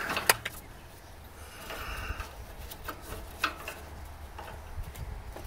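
A stabilizer-chain turnbuckle being turned by gloved hand to tighten it. There are light metal clicks and rubbing from the threads and the chain links: one sharp click just after it begins, then a few scattered softer ones.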